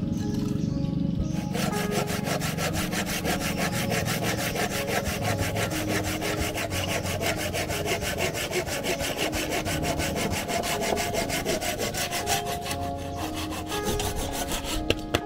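Hand saw cutting across a thick bamboo pole, with fast, even back-and-forth strokes of the blade rasping through the woody stem.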